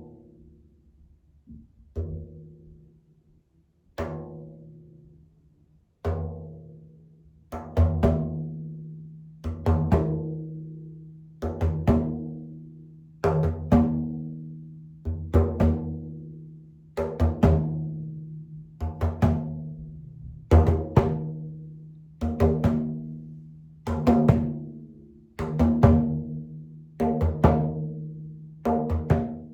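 Frame drum struck in a slow, steady beat, each stroke ringing on with a low resonant hum. At first single strokes come about every two seconds; from about eight seconds in they come in pairs, like a heartbeat, and grow louder.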